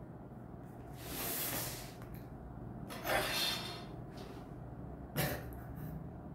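A person's breath sounds: a long exhale about a second in, a louder burst of breath around three seconds, and a short sharp one just after five seconds.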